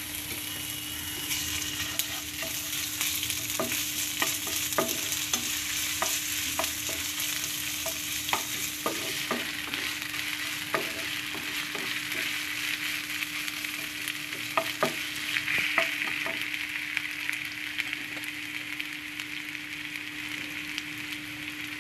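Chopped onions, green chillies, curry leaves and ginger-garlic paste sizzling in hot oil in a non-stick pan, with scattered clicks and scrapes from a wooden spatula stirring them. A steady low hum runs underneath.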